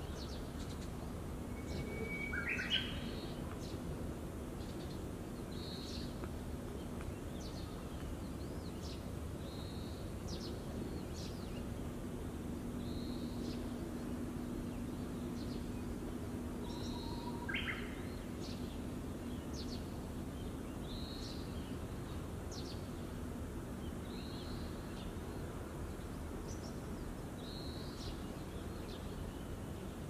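Japanese bush warbler (uguisu) singing its 'hoo-hokekyo' song twice, about two seconds in and again about seventeen seconds in. Each song is a held whistle followed by a quick flourish of higher notes. It is an early-April song that the uploader thinks has got only a little better.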